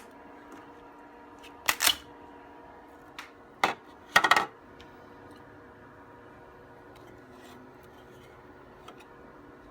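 Sharp clicks and crackling snaps, a pair about two seconds in and a longer crackle just after four seconds, as a freshly 3D-printed plastic part is worked loose from the printer's build plate, over a steady machine hum.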